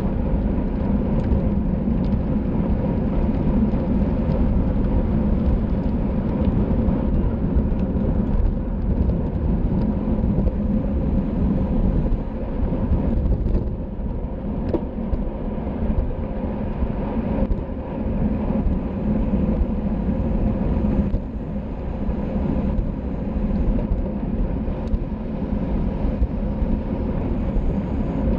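Steady wind rush and rolling road noise on a bicycle rider's camera microphone at race speed, with a faint steady hum.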